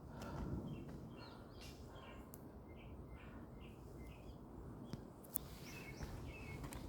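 Small birds chirping faintly in a quick run of short high notes, then two more near the end, over a low rumble; a single sharp click a little after five seconds in.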